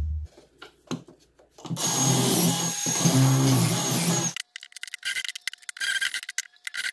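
Cordless drill boring pocket holes through a Kreg pocket-hole jig into the end of a pine 2x2: the drill runs hard for about two and a half seconds, then stops abruptly, and rapid scratchy clicking with a faint steady tone follows.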